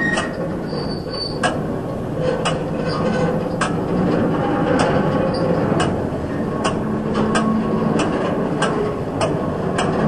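Case 230 square baler running on a tractor's drive: a steady machine din with sharp metallic clicks and knocks coming irregularly, about once or twice a second.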